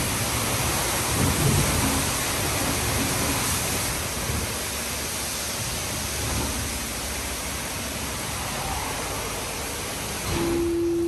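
High-pressure water jets of an Istobal M9+ rollover car wash spraying the car during its contour high-pressure pre-wash: a dense, steady hiss like heavy rain. A steady tone starts near the end.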